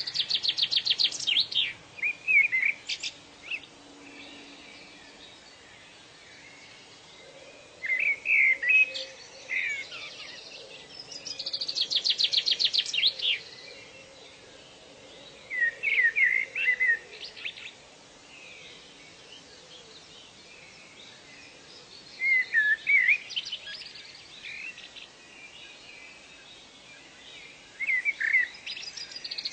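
Songbirds singing in bursts every few seconds: a fast trill of evenly spaced high notes at the start, again about twelve seconds in and at the end, alternating with short warbled phrases, over a faint steady background hiss.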